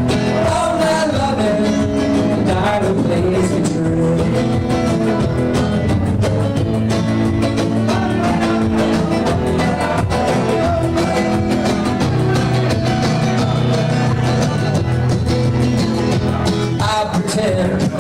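Music with a singing voice, playing steadily throughout.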